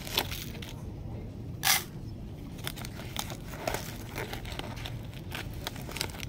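Spoon scooping loose black tea from a foil-lined tea carton and tipping it into a paper cup: crinkling foil and small clicks, with one louder rustle about a second and a half in.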